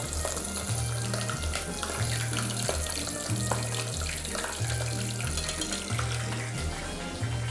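Kadaifi-wrapped prawn deep-frying in hot peanut oil, a steady crackling sizzle. Background music with a repeating bass line plays under it.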